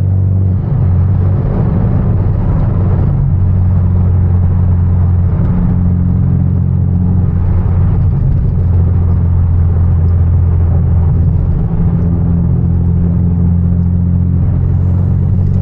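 Hyundai Genesis Coupe 2.0T's turbocharged four-cylinder engine running steadily while the car is driven, over road noise. The engine note shifts briefly about half a second in and again around twelve seconds.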